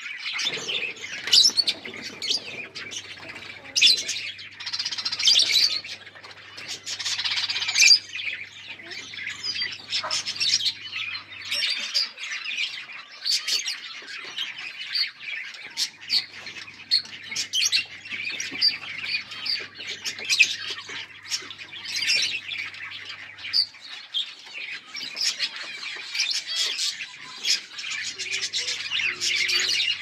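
Lovebirds chattering and squawking without pause during mating: a dense stream of shrill chirps and sharp calls, with louder squawks every second or two.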